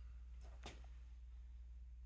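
Near silence: a steady low hum of room tone, with two faint clicks a little past half a second in.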